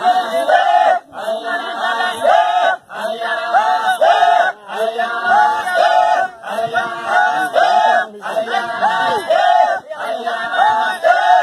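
Group of Maasai singers chanting for the adumu jumping dance, a short phrase repeated in a steady rhythm about every two seconds.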